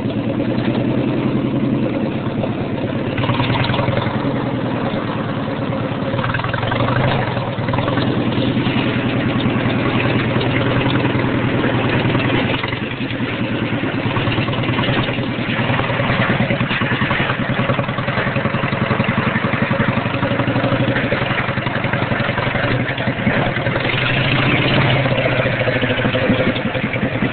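Riding lawn mower engine running loud through dual straight pipes with no mufflers or baffles, while the mower is driven. The engine note eases about twelve seconds in and gets louder again near the end.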